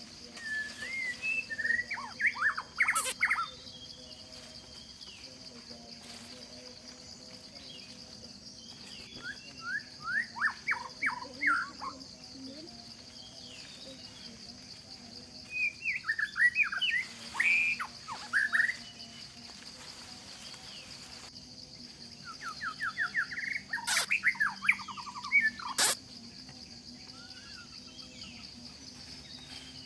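Wild birds chirping in four bouts of quick, repeated notes over a steady high-pitched insect drone, with a few sharp clicks between the bouts.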